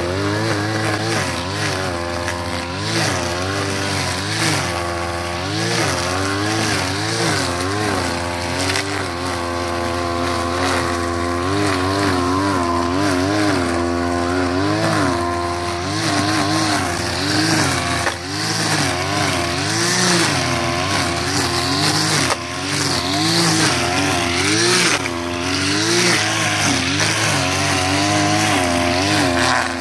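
Petrol brush cutter running as it cuts grass and weeds, its engine pitch rising and falling over and over as the throttle is worked.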